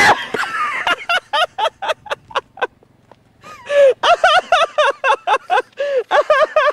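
A person laughing hysterically in rapid, high-pitched bursts, about four or five a second, with a short break about three seconds in before the laughing starts again.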